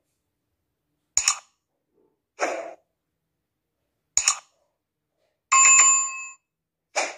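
Sound effects for an animated subscribe button: a sharp mouse click, a soft whoosh, a second click, then a short bright notification-bell ring a little after five seconds in that fades over under a second, and another click near the end.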